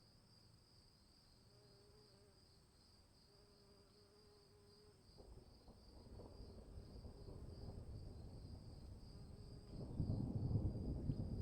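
Insects trilling steadily in a high, pulsing chorus. About five seconds in, a low rumble of thunder starts to build and swells sharply near the end.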